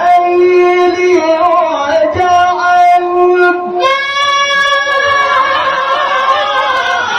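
Male qari reciting the Quran in the melodic tajwid style, holding long ornamented notes at a high pitch. About four seconds in his voice steps up to an even higher, brighter note that he sustains.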